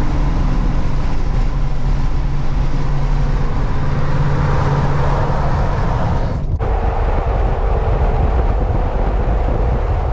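Road noise inside a moving pickup cab at freeway speed: a steady low rumble of engine and tyres with wind noise. The sound shifts abruptly about six and a half seconds in.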